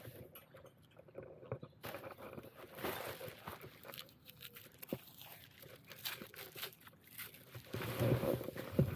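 Litter being picked up and handled: irregular crunching and rustling with scattered sharp clicks.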